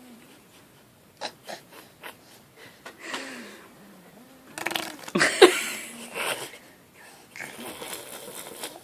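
A child making fake fart noises: several noisy blasts, the loudest a little past halfway, with a few soft clicks before them.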